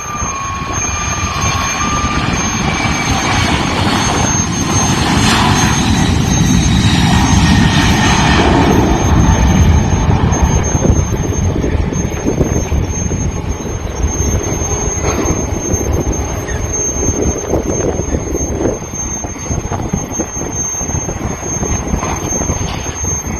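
Jet airliner's engines at takeoff power: loud engine noise with a steady high whine, building to its loudest about eight to ten seconds in, then slowly fading as the aircraft moves away.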